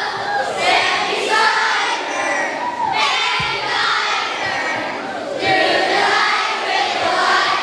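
A group of children's voices singing out loudly together, with a few voices swooping down in pitch.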